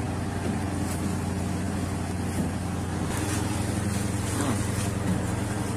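Ship's engine running steadily with a low hum, with a few brief crackles of branches scraping along the side and railing as the vessel pushes through overhanging trees.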